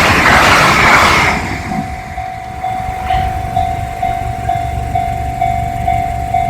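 A train rushes past close by, its noise dying away about a second and a half in. The level-crossing alarm goes on ringing with a single-pitched electronic ding, about two a second, until it stops right at the end.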